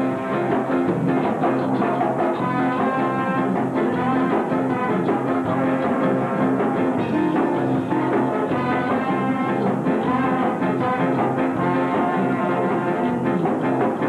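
Ska band playing live, a horn section of trombone and saxophones playing over electric guitar and rhythm section.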